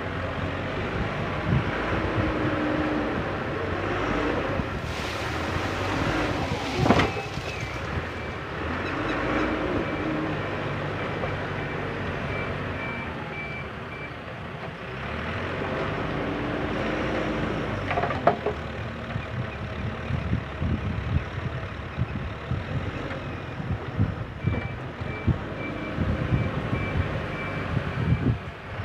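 JCB 3CX backhoe loader's diesel engine running under load, with its reversing alarm beeping in two stretches of several seconds each. Sharp knocks and clatter come through now and then, loudest near the end.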